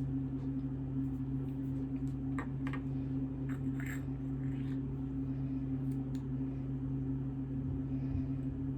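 A steady low hum, with a few faint light clicks and rustles about two to four seconds in and again around six seconds.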